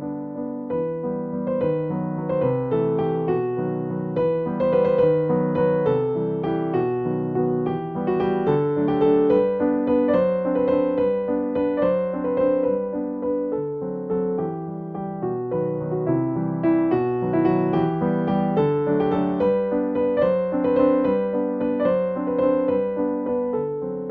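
Background piano music with evenly paced notes.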